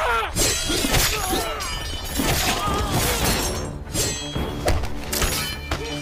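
Film fight soundtrack: dramatic orchestral score under a rapid run of sharp crashing and thudding blow effects, with men shouting in the first second or two. Steady sustained music notes take over from about halfway through, still punctuated by hits.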